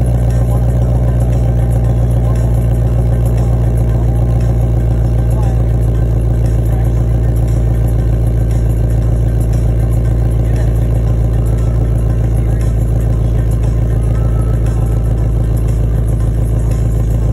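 2020 Ford Mustang Shelby GT500's supercharged 5.2-litre V8 idling steadily through its quad-tip exhaust, with a deep, even exhaust note.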